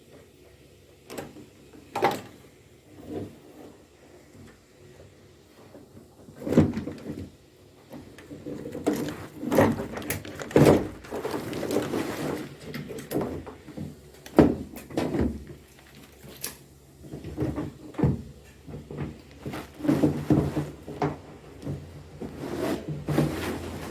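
Irregular knocks, clicks and scraping of plastic and metal parts being handled and removed as an LG washing machine is taken apart, busiest in the second half.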